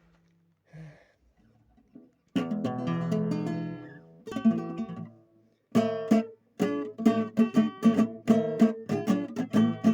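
Acoustic guitar strummed as a song's introduction: after a couple of faint handling sounds, two ringing chords about two seconds apart, then a steady rhythmic strum of about three strokes a second.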